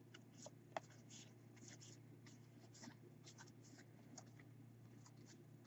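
Faint near-silence with soft, scattered clicks and slides of trading cards being handled and flipped through, over a low steady hum.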